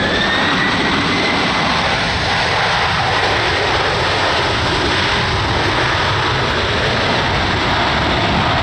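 Boeing 767-300ER airliner landing on a wet runway: loud, steady jet engine noise mixed with the hiss of spray thrown up by the wheels, with a faint whine rising slightly in pitch over the first two seconds.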